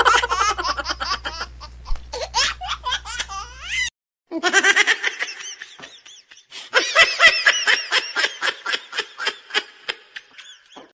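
High-pitched laughter in rapid bursts. It breaks off about four seconds in and starts again a moment later.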